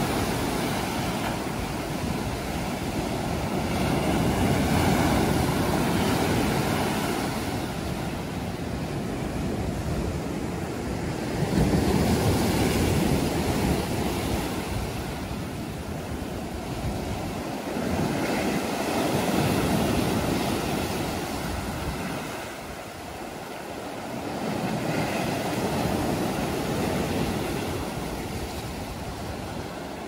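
Sea waves breaking over rocks and washing up a sandy beach, the surf swelling and easing every six or seven seconds.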